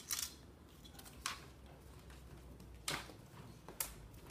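Kittens' paws and claws scrabbling and tapping on a wooden desk and bookshelf as they climb about: a handful of short, sharp scratches and taps, about one a second.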